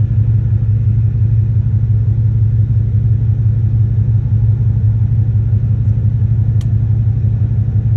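A steady, loud low rumble with a faint hiss above it, unchanging throughout.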